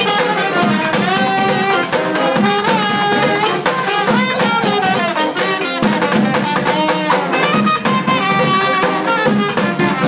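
Live brass band playing: trumpet, trombone and saxophone over a plastic bucket drum and a large drum beating a steady rhythm.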